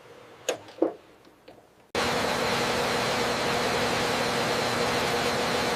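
Steady machine noise, an even hiss with a constant hum, cutting in suddenly about two seconds in after a near-quiet start with a couple of faint clicks.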